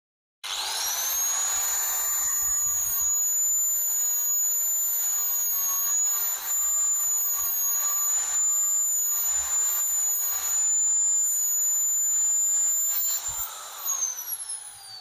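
Handheld electric angle grinder spinning up about half a second in, then running at a steady high-pitched whine while grinding the steel teeth of a power-window regulator's gear sector into shape. It winds down with a falling whine near the end.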